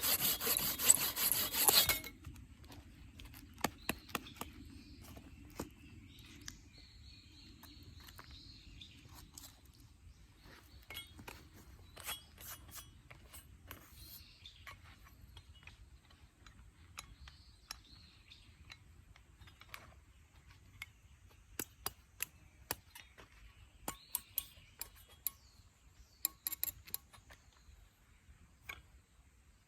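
Silky BIGBOY folding pruning saw cutting firewood with quick back-and-forth strokes, stopping abruptly about two seconds in. It is followed by scattered light clicks and knocks.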